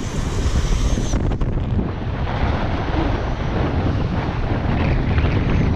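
Wind buffeting the microphone, with small waves washing up on the beach.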